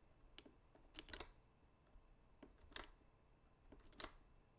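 Faint computer keyboard and mouse clicks: a handful of short clicks, two of them in a quick pair about a second in, as keyframes are copied and pasted in editing software.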